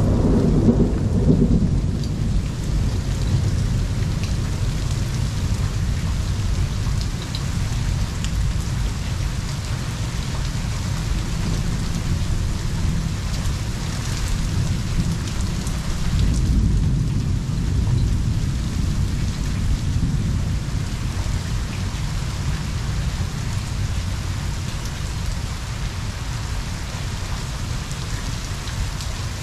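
Heavy rain falling steadily with continuous rolling thunder. The rumble swells near the start and again a little past halfway.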